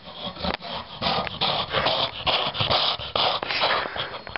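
Irregular rustling and rubbing of a padded sleeping bag and clothing as a person thrashes about inside it.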